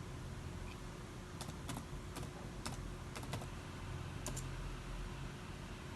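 Typing on a keyboard: about a dozen light, irregular clicks over a low steady hum.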